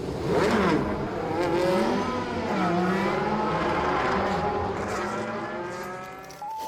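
Car engine revving repeatedly, its pitch sweeping up and down with each rev and fading away toward the end.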